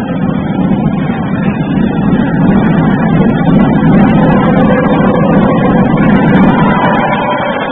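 Steady crowd noise filling a basketball arena, growing louder over the first few seconds. Faint music tones come in near the end.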